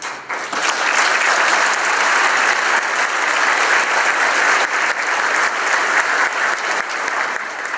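Audience applauding, building to full within the first second and dying away near the end.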